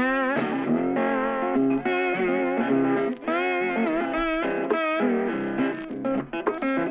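Background music led by an electric guitar playing a bluesy melody with bent, wavering notes.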